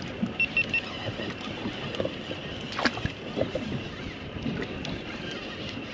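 Water sloshing against a fishing boat's hull with wind on the microphone and scattered small knocks. Three quick high beeps sound about half a second in, and a sharper click comes about three seconds in.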